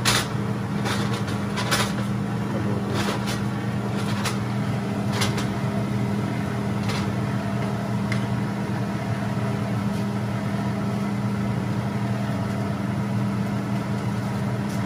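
Wooden spatula knocking and scraping against a nonstick grill pan as salmon fillets simmering in coconut milk are turned and pushed about, a knock every second or so over the first eight seconds and a stray one later. Under it runs a steady low hum.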